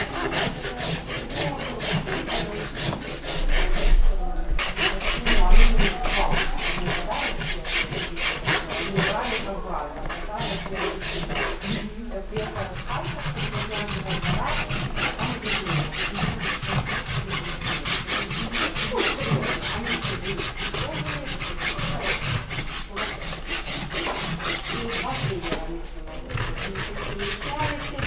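Farrier's hoof rasp filing a horse's hoof in steady, repeated rasping strokes, with short pauses about four and twelve seconds in.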